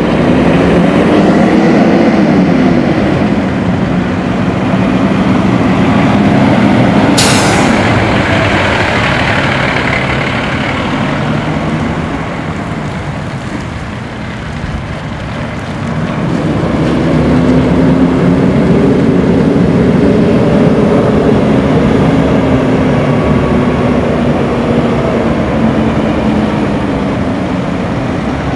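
Cat C13 diesel engine of a Freightliner M2 112 truck under way, its note rising and falling as it accelerates and the automatic gearbox shifts. About seven seconds in there is a short hiss of air from the air brakes.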